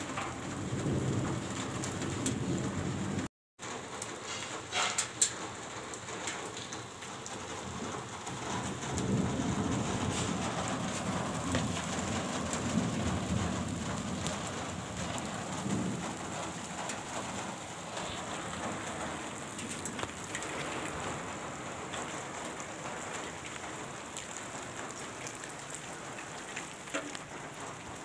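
Steady rain falling on a wet concrete rooftop, with a low rumbling that swells near the start and again for several seconds in the middle.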